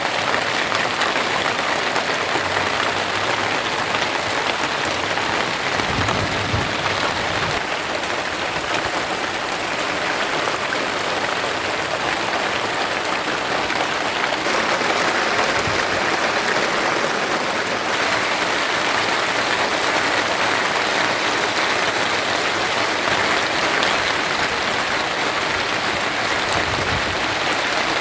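Steady rain falling, an even, dense hiss with no letup.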